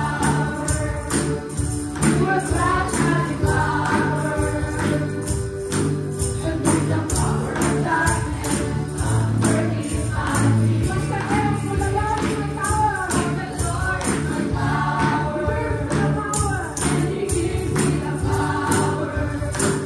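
Live gospel worship song: women's voices singing into microphones over instrumental accompaniment with a steady beat, and tambourines jingling in time with the music.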